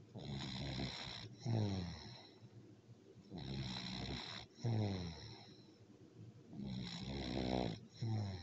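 Sleeping cat snoring in a slow, even rhythm, about one breath every three seconds. Each breath is a thin whistling hiss followed by a short snore that drops in pitch, three times in all.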